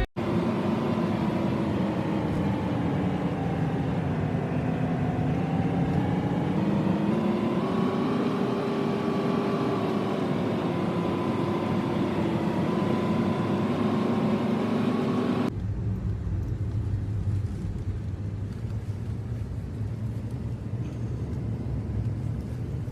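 A vehicle engine running steadily, its pitch drifting slowly up and down. About fifteen seconds in, it gives way abruptly to a low, steady rumble.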